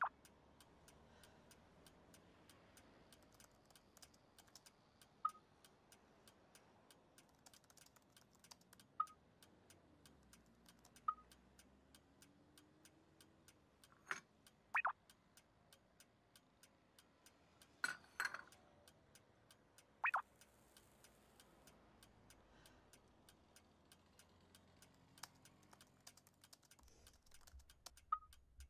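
Faint, isolated sharp clicks several seconds apart over a low hum, with a few louder clicks around the middle.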